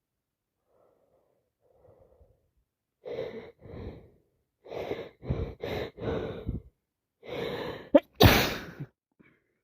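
A person with a head cold building up to a sneeze: a run of short, hitching, gasping breaths in, a longer drawn-in breath, then one loud sneeze near the end.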